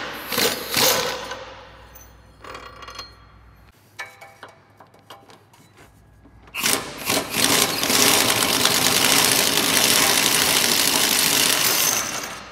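A power tool driving a socket on a long extension spins the already-loosened rear subframe bolts out of the car's subframe. It runs in short bursts near the start, goes quieter for a few seconds, then runs continuously from about halfway until just before the end.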